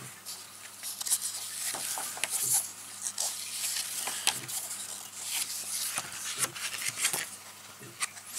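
Glossy pages of an Army Painter painting guide booklet being flicked through by hand: a run of paper rustles and page flaps with many short crisp strokes.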